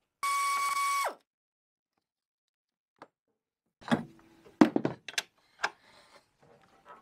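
A short electronic transition effect, a steady tone over noise that drops off after about a second. After a pause, sharp metal clanks and knocks of a wrench being worked on the snowmobile's chain case adjuster, the loudest about four and a half seconds in.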